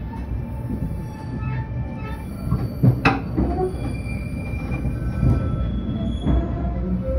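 Passenger train carriages running round a curve, their wheels squealing against the rails in several steady high tones over a low rumble, heard from inside a carriage. A sharp clank rings out about three seconds in.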